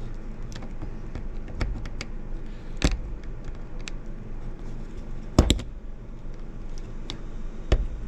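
Small clicks and taps of a hex key and fingers working a screw into a 3D-printed plastic housing, with sharper knocks at about 3 seconds, 5 and a half seconds and near the end, over a low steady hum.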